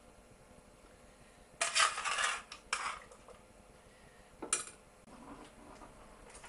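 Metal utensils scraping and clinking against a metal steamer pan and china plates while boiled potatoes and carrots are served out, in three short clatters: the longest about a second and a half in, a shorter one near three seconds, and a brief one about four and a half seconds in.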